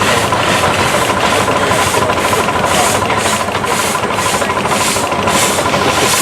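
Half-scale Case steam traction engine working under load on a sawmill belt, its exhaust chuffing evenly at about two beats a second. A steady high whine runs underneath.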